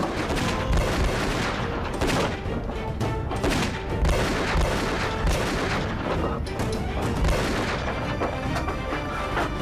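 Handgun shots fired again and again at uneven intervals in a staged shootout, with dramatic background music underneath.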